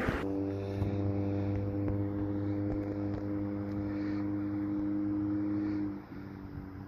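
Fire truck's diesel engine running with a steady, even drone, which drops to a quieter, lower note about six seconds in.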